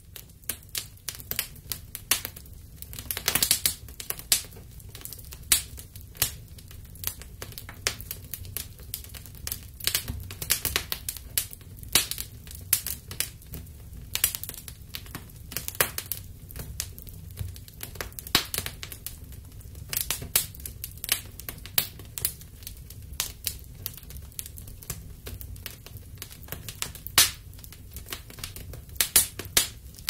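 Wood fire crackling in a fireplace: irregular sharp pops and snaps, some much louder than others, over a low steady rumble of the burning.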